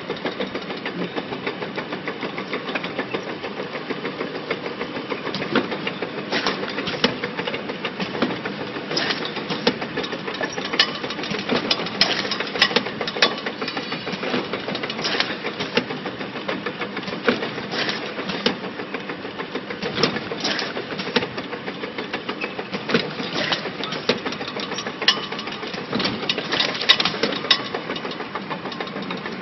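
Automatic labeling machine for flat-sided plastic jugs running: slatted chain conveyor and labeling head, with a steady engine-like rattle of a small piston air compressor under it and irregular clacks and knocks as the jugs pass through.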